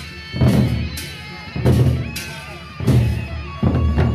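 Gendang beleq music: large double-headed Sasak barrel drums beaten with sticks and hands together with crashing cymbals. Four loud accented strikes come about a second apart over steady drumming.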